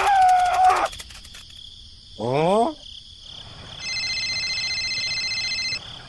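Cartoon sound effects for a clay figurine: a short squeaky voice sound, then a quick rising whoop, then a steady electronic phone ring held for about two seconds, over a constant high-pitched background buzz.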